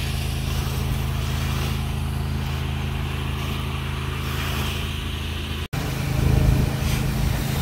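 Steady hum of a pressure washer's engine running, with the hiss of a low-pressure water spray rinsing siding. The sound drops out for an instant about two-thirds through and comes back a little louder.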